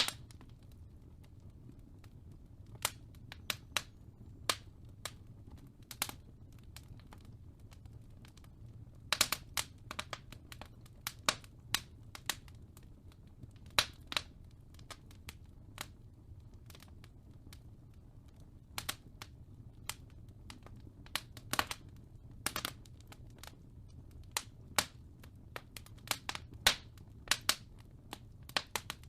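Fireplace crackling: irregular sharp pops and snaps, some single and some in quick clusters, over a low steady rumble.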